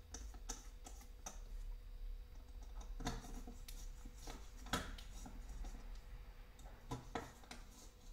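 Light clicks and taps of small screws being handled and set into the holes of a carbon-fibre drone frame's top plate by hand, with a few louder knocks about three seconds in, near five seconds and about seven seconds in.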